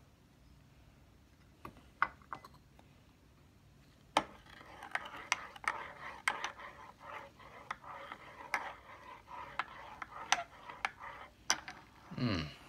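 Spoon stirring hot cocoa in a cup, clinking and scraping against the sides, starting in earnest about four seconds in after a few single taps.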